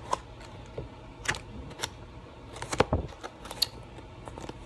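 Thick pages of a scrapbook paper pad being turned and handled: a handful of scattered rustles and flaps, the loudest about three seconds in.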